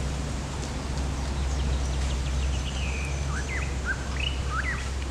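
Outdoor ambience with birds chirping: a steady low rumble underneath, and a quick run of short rising and falling chirps in the second half.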